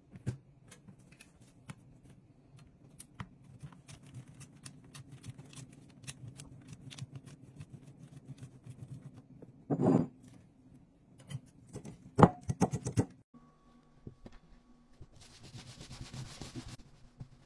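A block of cheddar being grated on a stainless steel box grater laid on its side: a run of quick scraping strokes, with a few louder knocks and scrapes of the grater about ten and twelve seconds in. After a short break near the end comes a brief soft rustle of a cloth towel being smoothed by hand.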